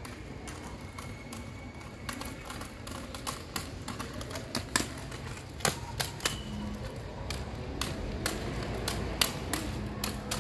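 A child's inline skates rolling and clattering on paving: a run of irregular sharp clicks and knocks over a low rumble, denser after about two seconds.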